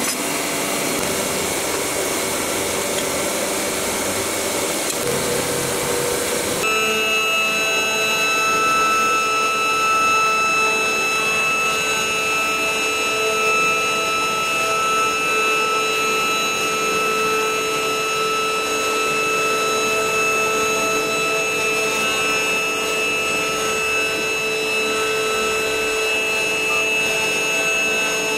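CNC router spindle running steadily while its V-bit carves grooves into a wooden board: a constant whine made of several steady tones over a rough cutting noise. It starts about six seconds in, suddenly replacing a broad hiss.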